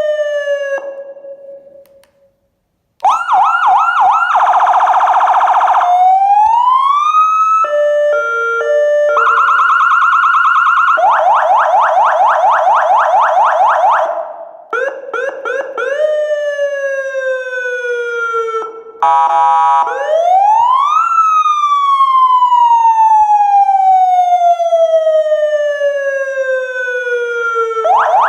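Electronic vehicle siren of an Aosen X6 smart siren, cycling through its tones one after another: fast yelps and warbles, a stepped two-tone pattern, and wails that rise and then fall slowly over several seconds. A brief pause comes about two seconds in.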